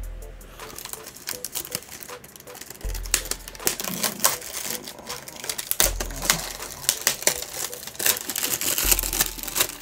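Plastic shrink wrap crinkling and crackling as it is handled and pulled off a cardboard trading card box, in a dense run of sharp crackles.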